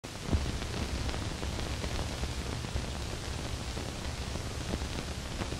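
Surface noise of an old film soundtrack with no programme on it: a steady hiss with a few scattered clicks and pops.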